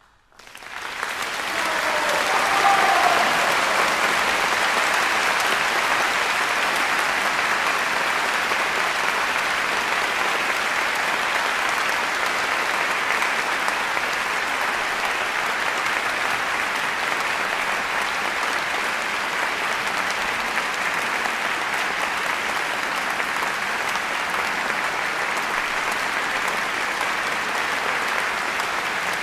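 Audience applauding. The applause rises out of silence within about a second and then holds steady.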